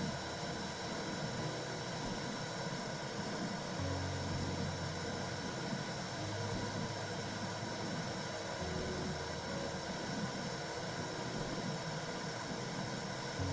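Womb-sound track for soothing a baby: a steady rushing hiss with a low rumbling hum that swells in and out every few seconds.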